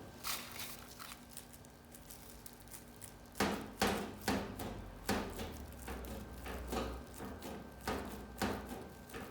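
Irregular knocks and taps: a couple near the start, then a run of a dozen or so unevenly spaced ones from about three seconds in.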